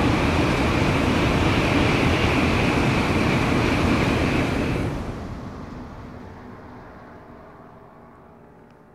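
Tōkaidō Shinkansen high-speed train passing over a river bridge: a loud, steady rushing noise that begins to fade about five seconds in and dies away gradually as the train recedes.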